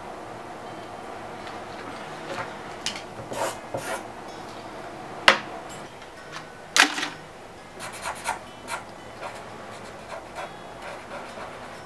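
Paper being handled and written on: scattered rustles and pen scratches on paper, with two sharper, louder paper crackles about five and seven seconds in.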